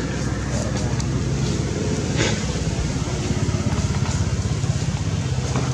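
A motor vehicle engine running steadily close by: a low hum with a fast flutter. A short click sounds about two seconds in.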